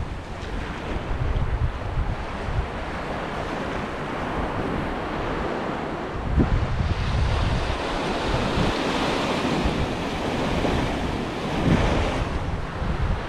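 Sea waves breaking and washing up a beach, one wash swelling in the middle and easing near the end, with gusts of wind buffeting the microphone.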